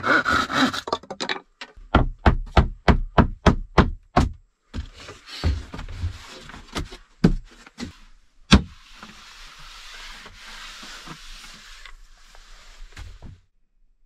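A hand saw cutting through a pine lining board, ending about a second in. Then a run of about ten quick, even hammer blows on wood, followed by scattered knocks with one sharp, loud strike and a few seconds of soft rubbing on wood.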